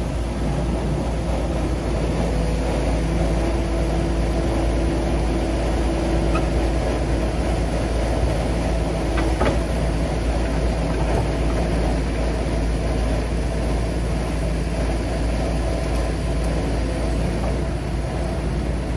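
Excavator's diesel engine running steadily at close range, a constant low rumble with a steady hum, and a faint click about nine seconds in.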